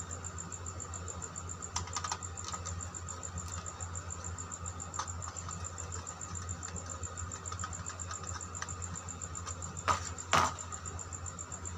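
Screwdriver turning terminal screws on the sockets of a plastic switchboard while the neutral wire is fastened: faint scattered clicks and scrapes over a steady hum, with two sharper clacks about ten seconds in.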